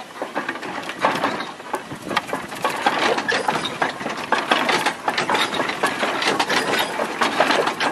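Steam Elephant replica early steam locomotive running, its exposed mechanism clattering and knocking in a dense, irregular rattle.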